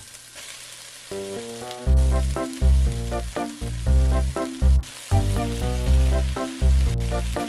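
Onions, spring onions, carrots and cabbage sizzling as they stir-fry in oil in a steel pot, under background music: a melody of short notes, with heavy bass notes coming in about two seconds in that are the loudest part.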